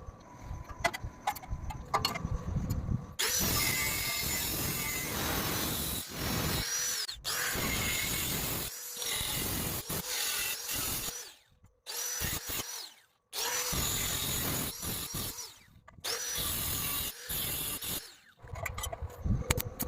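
A power tool cutting metal in several passes of a few seconds each, stopping abruptly between passes. Handling knocks and clicks come before the first cut.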